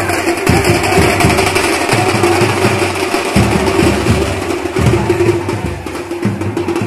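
Loud music with heavy drumming, played for a dancing crowd.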